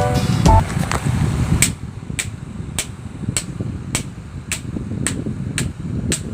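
Sharp knocks repeating evenly, about two a second, over a low rumble as an electric fan is being wrecked. A louder, rougher noise precedes them and stops about a second and a half in.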